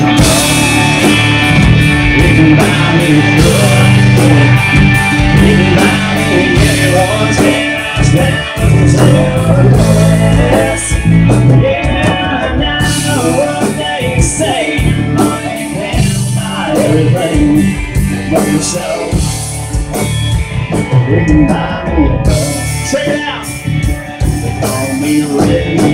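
Live band music: a man singing with an acoustic guitar over drums and cymbals.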